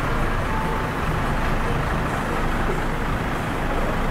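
Large bus diesel engine running with a steady low rumble, amid the general noise of other buses.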